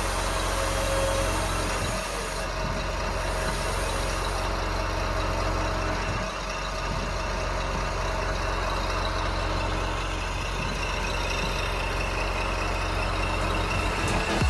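Radio-controlled scale construction machines running: a steady mechanical hum with low, even drone tones.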